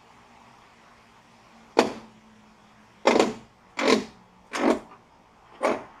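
Five sharp knocks with a short ringing tail, irregularly spaced about a second apart, from the steel frame of a portable sawmill being jolted and shifted by hand.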